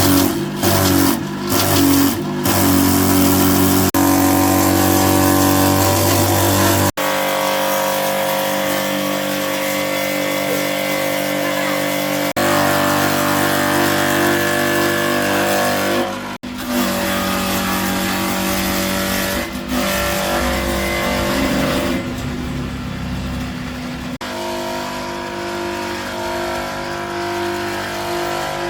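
A motor running steadily with a droning, whining hum. It changes abruptly several times, as separate runs are cut together.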